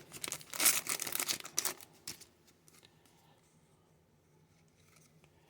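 Trading-card pack wrapper crinkling and being torn open, a burst of crackly rustling lasting about two seconds.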